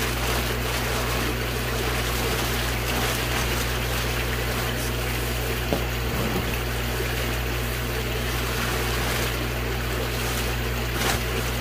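Steady low hum and watery rushing of a running water pump, with a large plastic fish-shipping bag crinkling and rustling as it is pulled open.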